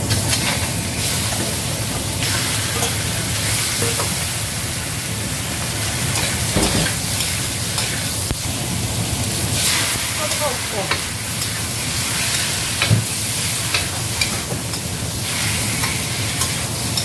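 Squid pieces sizzling in hot oil in a stainless-steel wok, stirred and tossed with a metal ladle that scrapes and clinks against the pan. The hiss is steady, broken by frequent short knocks of the ladle.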